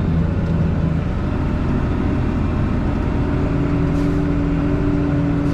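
Case IH MXM 155 tractor engine running at a steady speed while pulling a plough, an even hum with no change in revs.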